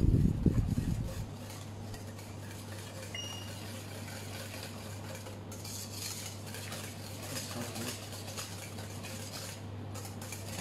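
Wire whisk scraping and clinking rapidly against a stainless steel bowl as it beats a thick, still-lumpy cream cheese and butter mixture over a double boiler. A few dull thumps come in the first second, and a steady low hum runs underneath.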